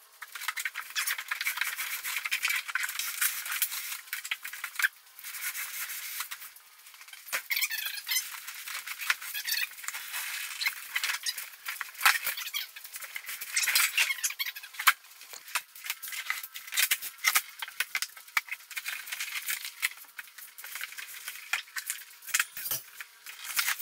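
A large cardboard shipping carton being shifted, tipped upright and opened: scraping and rustling cardboard with many short knocks and clicks, no low sounds at all.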